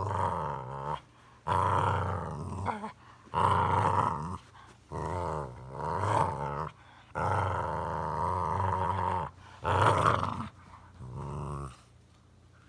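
Boxer dog growling in about seven drawn-out, pitched bouts of a second or two each, with short pauses between, stopping near the end.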